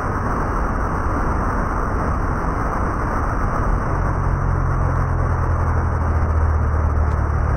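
Water rushing through the dam's sluice gates in a steady roar, and from about four seconds in the low drone of a cargo boat's engine grows louder as it pushes against the current.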